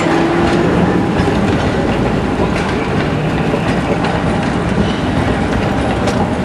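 A passenger train's coaches rolling past, with a steady loud rumble of steel wheels on the rails and scattered clicks.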